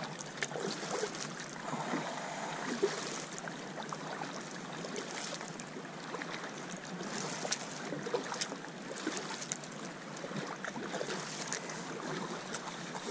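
Kayak paddling on a slightly choppy sea: paddle blades dipping and splashing, water washing along the plastic hull, a few light knocks, and some wind on the microphone.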